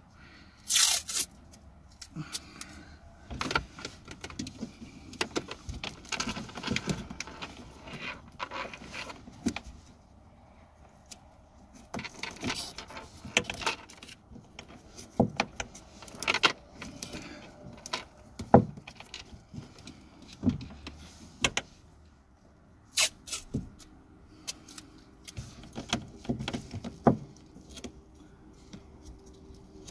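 Hands taping the dash cam power cable to the car's existing wiring loom with cloth harness tape: irregular rustling, crackling and light clicks from the tape, cables and plastic trim, with short pauses.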